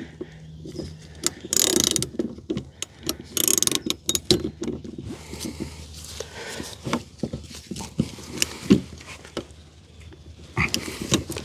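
Metal lock-ring tool working against the very tight fuel pump locking ring in the fuel tank: irregular clicks and scraping of metal on metal, with two longer scrapes in the first few seconds.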